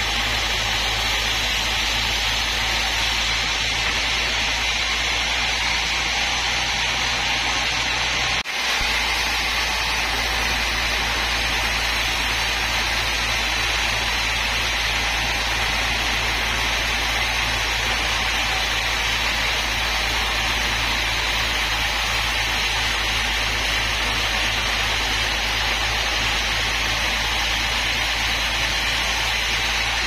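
Band sawmill running steadily as its blade cuts lengthwise through a mahogany log: a constant hiss with a low hum beneath. The sound breaks off for a moment about eight and a half seconds in.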